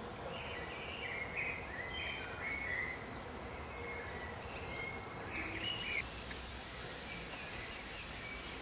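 Small birds chirping and singing, short high notes coming in quick succession, over a steady outdoor background noise. After about six seconds the notes move higher.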